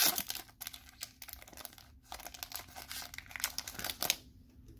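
Foil trading-card booster pack wrapper crinkling and crackling in the hands as the cards are slid out of it, loudest right at the start and stopping about four seconds in.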